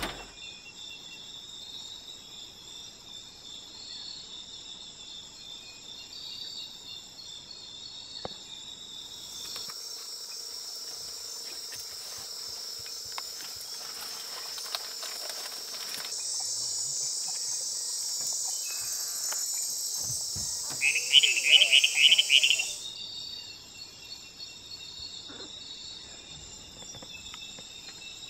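Night-time tropical rainforest insect chorus: several steady high-pitched trills layered together, the mix changing abruptly a few times. A little after 20 seconds in comes a loud call of rapid pulses.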